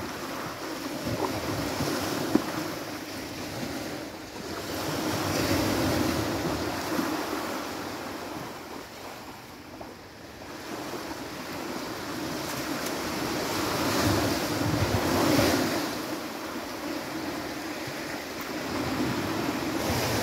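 Small surf breaking on a sandy beach: a steady wash that swells and fades as the waves come in. There is a single sharp click about two seconds in.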